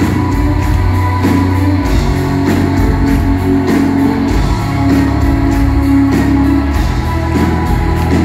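Rock band playing live through a club PA, recorded from within the crowd: a steady drum beat over guitars and low held bass notes.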